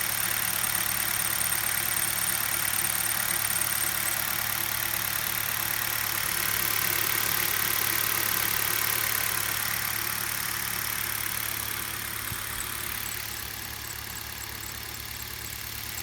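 Car engine idling steadily with its accessory drive belt turning, a little quieter in the second half.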